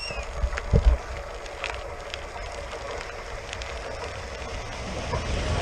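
Electric commuter train approaching slowly, its running noise building steadily near the end, with wind buffeting the microphone and a few sharp clicks early on.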